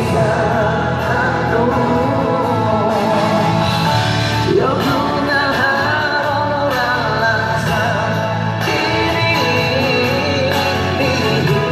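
A song playing: a lead vocal sung over a full band backing.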